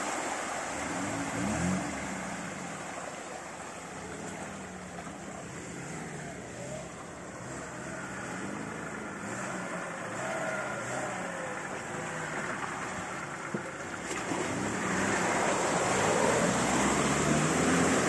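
Lada Niva engine revving up and down under load off-road, over a steady rushing noise, getting louder over the last few seconds.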